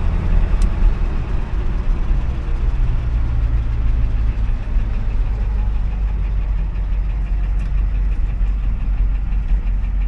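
Ford F350 diesel pickup engine running under way, heard from inside the cab as a steady low rumble mixed with road noise.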